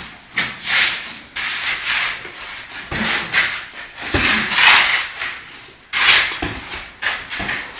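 Two boxers sparring in gloves on a concrete floor: repeated rough scuffing, rushing bursts every second or so, with a few dull low thuds.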